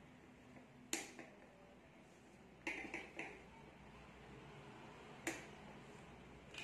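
Plastic Emido construction sticks snapping into place, giving sharp single clicks about a second in and again past five seconds, with a quick run of three clicks in the middle.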